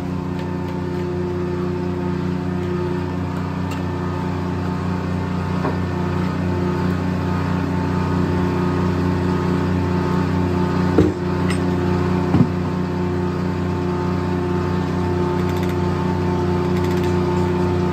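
Engine powering a circular sawmill, running at a steady speed with a constant drone. Two sharp knocks come about a second and a half apart, some eleven seconds in.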